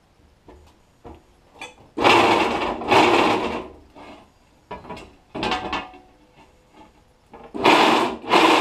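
Loud bursts of harsh metal scraping from drill press work on an aluminium disc as its holes are cleaned up, several of them, each about half a second to a second long, with lighter knocks between.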